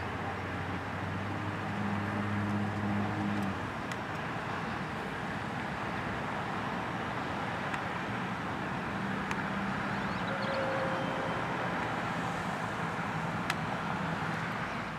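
Steady urban road traffic noise, with the low engine hum of passing vehicles, strongest from about one to three and a half seconds in.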